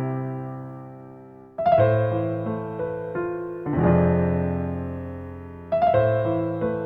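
Slow, calm piano music: sustained chords struck a few seconds apart, each left ringing and dying away, with single notes moving above them.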